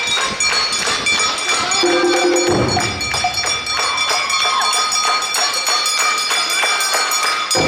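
Awa odori band music: drums and a ringing metal gong keep a quick, even beat while a melody glides up and down above them.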